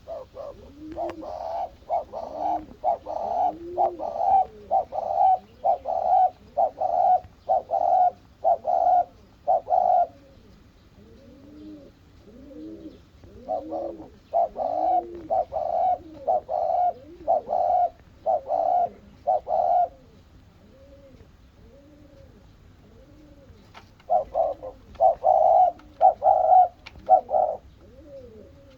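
Spotted doves cooing, low rising-and-falling coos repeated over and over. Three bouts of louder, quicker calls come in runs of several seconds, at the start, about midway, and near the end.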